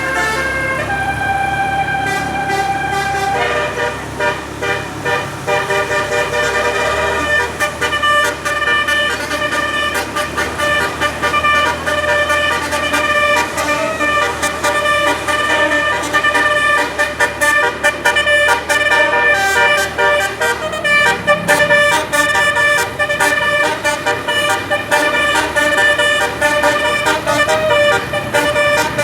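Telolet basuri musical air horn playing a tune non-stop: held notes at first, then from about four seconds in a fast, continuous run of short changing notes.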